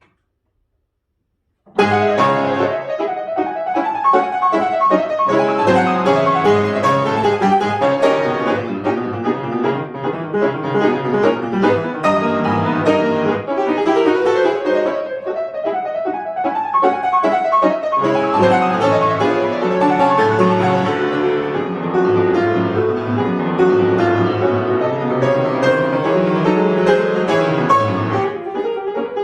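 Piano playing a piece. It starts abruptly out of near silence a little under two seconds in, and many notes run on without a break after that.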